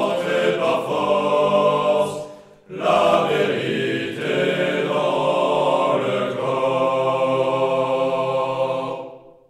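A choir singing the closing phrases of a French military song in long held notes. The singing breaks off briefly about two and a half seconds in, then comes back for a long final phrase that fades out just before the end.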